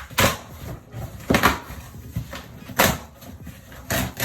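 Cardboard box and packaging being handled and opened: a few short knocks and scrapes, about one a second.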